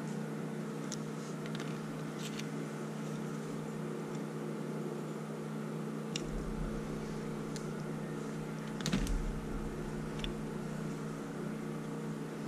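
Steady mechanical hum in a small workshop room, with a few light metallic clicks and taps from small tools and carburetor parts being handled, and one slightly louder knock about nine seconds in.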